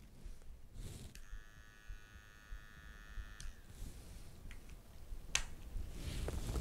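Battery-powered pet nail grinder switched on, its small motor giving a steady high whine for about two seconds before it is switched off. A single click follows near the end.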